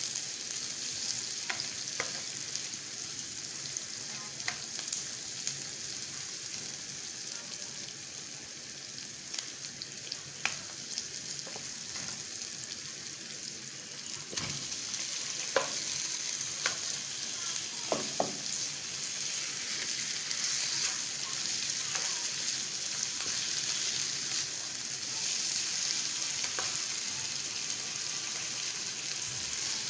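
Sliced onions sizzling as they fry in a nonstick wok, with the occasional scrape and tap of a plastic spatula stirring them. The sizzle grows a little louder about halfway through.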